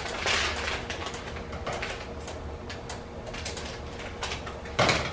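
Boiling water with oil in a large stockpot, bubbling and popping irregularly over a low steady hum. A short, louder noise comes near the end.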